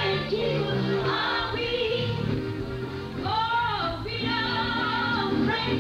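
Gospel music: several voices, women's among them, singing over steady held instrumental notes.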